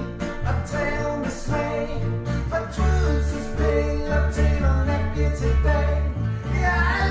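Small acoustic band playing live: a man singing over strummed acoustic guitars.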